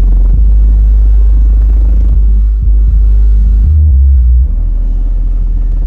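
Four square Kicker 12-inch subwoofers in one box playing a deep bass track very loud, driven by a DS18 FRP-3.5K amplifier and pushed to their limits. A stronger, slightly higher bass note comes just before four seconds in, then the bass drops a little in level.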